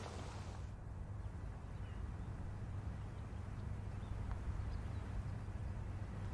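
Quiet outdoor ambience: a steady low rumble with a few faint bird chirps.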